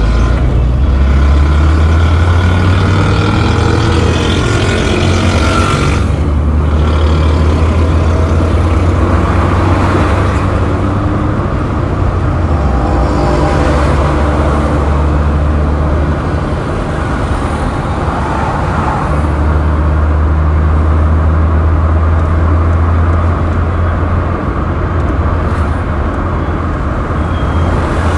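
Road traffic noise: a steady low engine and road rumble, with cars and heavier vehicles going by.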